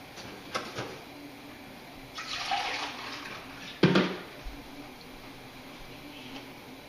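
Kitchen tap running briefly for about a second and a half, between a few light clicks and a sharp knock like a utensil or dish set down on a hard surface.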